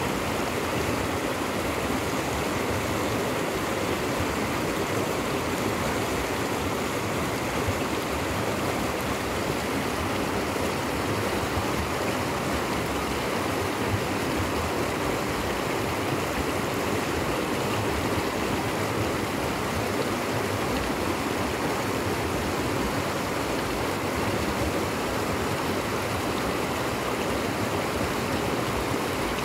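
Fast, shallow mountain stream rushing and splashing over rocks, a steady continuous rush of water.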